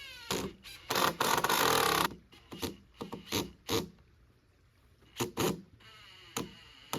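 Woodworking tool sounds on wood: a loud rasping, grinding noise lasting about a second, then a run of sharp, irregular knocks.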